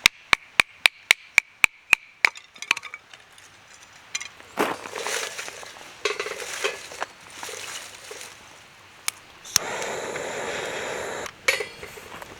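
A hammer striking metal nine times in quick succession, about four blows a second, each with a short metallic ring. Then rustling handling sounds and, near the end, a steady rushing scrape lasting under two seconds.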